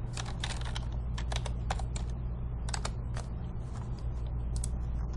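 Computer keyboard keys being typed in irregular clicks, over a steady low hum.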